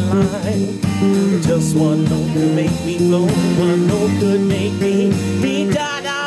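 Live rock trio of electric bass, drum kit and electric guitar playing an instrumental passage: a steady bass line and drum beat under an electric guitar lead with wavering, bent notes.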